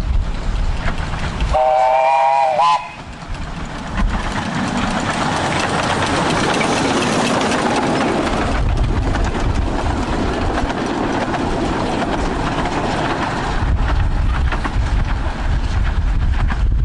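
A miniature railway train sounds one short whistle about a second and a half in. Its running noise then passes for the next several seconds. Wind rumbles on the microphone near the start and again near the end.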